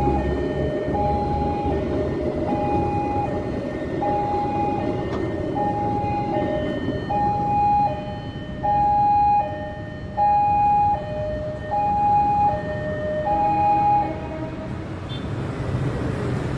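A railway level crossing's electronic warning alarm sounds a repeating high-low two-tone signal, about one cycle every one and a half seconds, and stops about fourteen seconds in. At the start it plays over the rumble of a passing train, which fades within the first couple of seconds.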